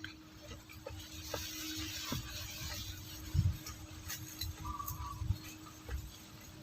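Close-up chewing of raw bitter gourd: irregular crunching and wet mouth sounds with low thumps, over a steady faint hum.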